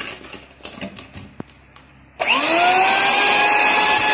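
Electric hand mixer switched on about two seconds in: its motor whine rises quickly as it spins up, then runs steadily, beaters turning through batter in a stainless steel bowl. A few light knocks come before it starts.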